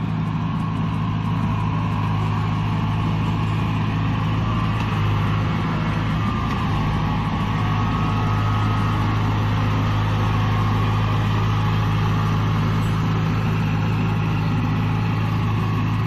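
Kubota DC-70 combine harvester's diesel engine running steadily at an even pitch as the tracked machine drives through a flooded, muddy canal.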